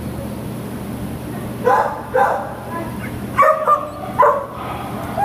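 Dogs giving a series of short yips and barks, about seven, starting a little under two seconds in, over a steady low background hum.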